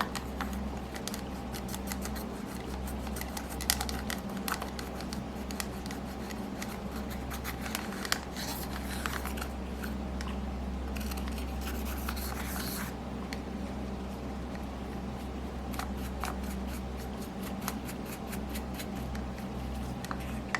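Slime being kneaded and stretched by hand with makeup worked into it, giving a run of sticky clicks and crackling pops, with longer crackling stretches about eight and eleven seconds in. A steady low hum runs underneath.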